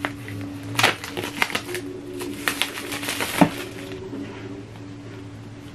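Crinkling of plastic wrap and clicks of a cardboard Apple Pencil box being handled, from about a second in until past three seconds, the sharpest click near the end of that stretch. A steady low hum runs underneath.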